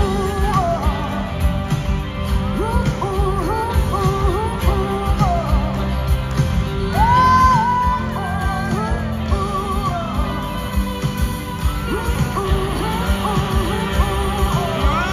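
Live rock band playing in a large arena: a singer with vibrato, holding one long note about seven seconds in, over drums, bass and guitars.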